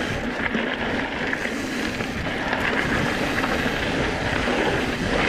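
Wind rushing over the camera's microphone on a fast mountain-bike descent, with the tyres rolling over loose shale trail.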